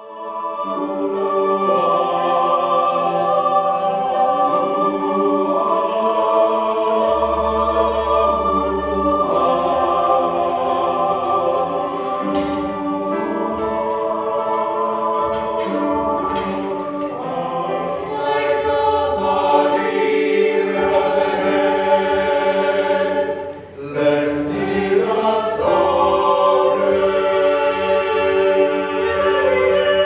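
Small mixed choir singing, holding slow sustained chords that move from one to the next. The singing briefly thins about 23 seconds in before the full chord returns.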